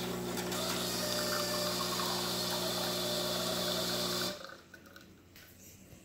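Saeco Vienna Plus espresso machine's vibratory pump running with a steady hum as it pushes hot water through the brew unit to extract an espresso shot. It cuts off suddenly about four seconds in, when the shot is done.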